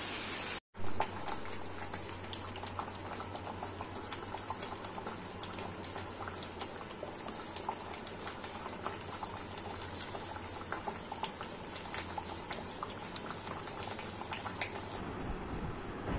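Dal makhani simmering in a pan, its thick liquid bubbling with many small, irregular pops of bursting bubbles.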